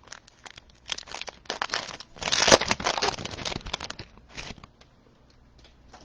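Foil wrapper of a Bowman Chrome trading-card pack being torn open and crinkled. The crackling is loudest about two to four seconds in, then dies away.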